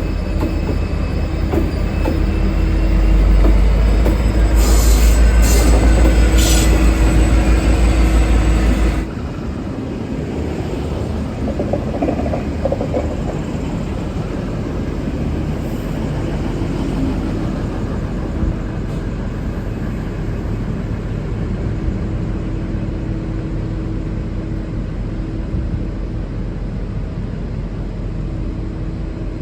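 A V/Line N class diesel-electric locomotive and its carriages running on the rails, with a heavy deep rumble and short high squeals about five to seven seconds in. The rumble cuts off abruptly about nine seconds in, leaving a steadier, quieter train noise with a faint hum.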